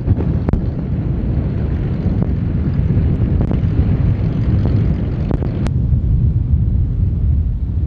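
Wind buffeting the microphone: a heavy, uneven low rumble, with a sharp click about two-thirds of the way through.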